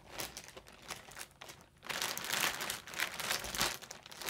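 Clear plastic bag crinkling and rustling as hands rummage through the yarn inside it: light scattered crinkles at first, then dense, louder crinkling from about two seconds in.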